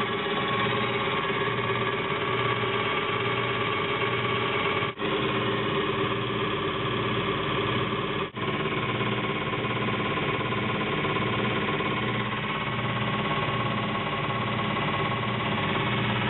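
Water-cooled, diamond-edged rock saw running steadily as its automatic feed carries a killer whale tooth through the blade, with cooling water splashing. A steady machine hum with a regular low throb.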